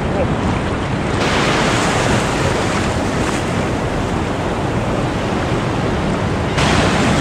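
Shallow surf washing and fizzing close to the microphone, with wind noise on it; the wash turns brighter and hissier about a second in.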